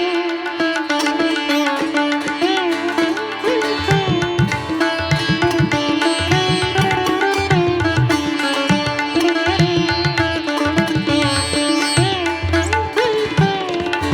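Background instrumental music: a plucked string melody with bending notes over a held drone, and a low drum beat that comes in about four seconds in.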